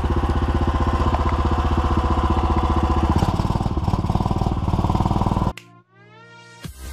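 PROMAX SRX 700 snowmobile engine running as the machine rides off, heard from the rider's seat, with an even pulsing note that shifts about three seconds in. About five and a half seconds in it cuts off suddenly, and a short sweeping electronic tone and electronic music follow.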